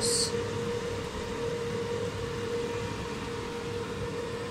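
Steady machine hum with an even hiss, the background drone of a kitchen with a pot of sauce simmering on the gas stove.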